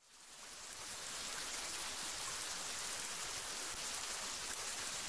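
A steady hiss of noise that fades in over about the first second, then holds even.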